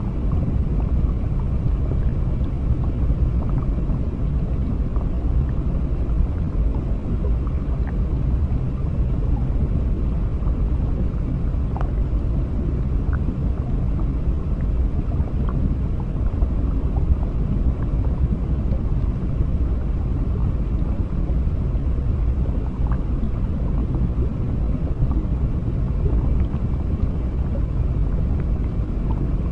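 Steady low underwater rumble with a few faint small ticks scattered through it. It is a continuous underwater ambience with no music.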